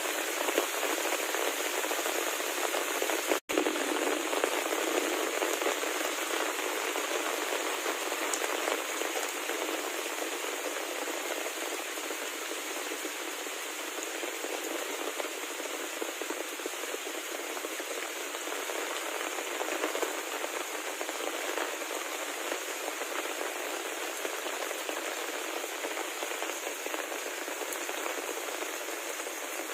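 Heavy rain falling steadily, a dense, even hiss of drops that cuts out for an instant about three and a half seconds in.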